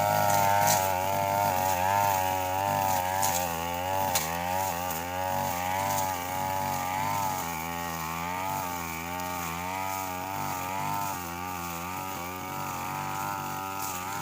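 Brush cutter engine running under load, its pitch rising and falling as the throttle is worked, with a few sharp ticks in the first few seconds. It gets quieter from about halfway.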